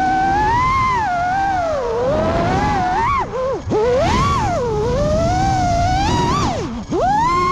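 FPV quadcopter's brushless motors whining, the pitch sweeping up and down with the throttle. About three and a half seconds in, and again near the end, it dives sharply almost to nothing and climbs back as the motors reverse to spin the 3D props the other way.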